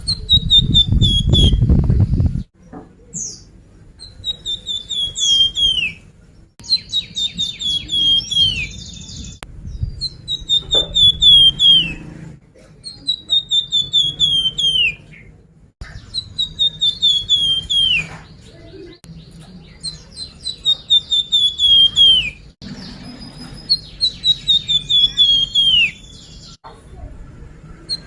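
Song of a flamboyan bird, used as a lure recording: phrases of rapid high notes that slide down in pitch, repeated over and over, about every two to three seconds. A loud low rumble fills the first two seconds.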